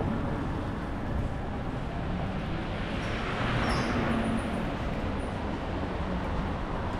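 City street traffic noise, with a vehicle passing and swelling loudest about three to four seconds in.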